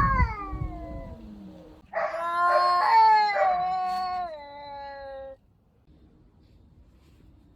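Domestic cat yowling during a fight standoff: a drawn-out call falling in pitch, then a longer, louder wail from about two seconds in that stops sharply before the last two seconds.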